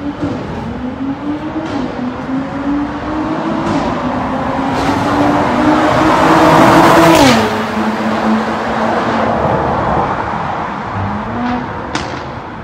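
Mercedes-AMG GLC43's twin-turbo V6 breathing through a Fi Exhaust valvetronic cat-back with catless downpipe, accelerating hard toward the listener, its pitch climbing in steps through gear changes. It is loudest as the car goes by about seven seconds in, where the pitch drops suddenly, then runs lower and fades as it drives away, with a few sharp cracks along the way.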